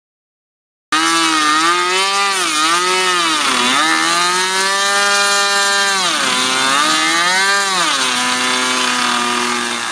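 Small O.S. nitro glow engine of an RC model plane running at high speed, starting abruptly about a second in, its pitch rising and falling several times and beginning to fade near the end.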